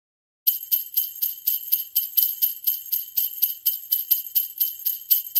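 Jingle bells shaken in a steady rhythm, about four shakes a second, starting about half a second in.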